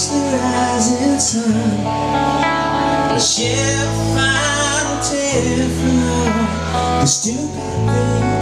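A live band plays a song: singing over strummed guitar, with held low notes that change every second or two.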